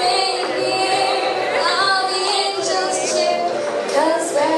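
Music with high-pitched singing voices.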